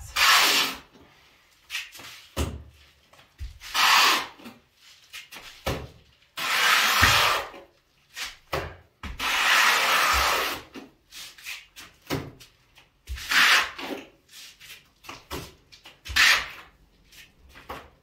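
Plastering rule scraped over fresh plaster on a wall in repeated strokes, each lasting from half a second to nearly two seconds, with short knocks between them.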